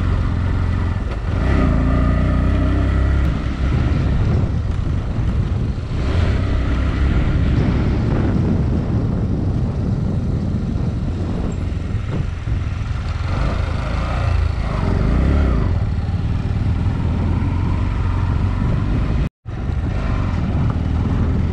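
Bajaj Pulsar NS125 motorcycle running under way on a rough, partly unpaved road, with a heavy steady low rumble throughout. The sound drops out for a moment near the end.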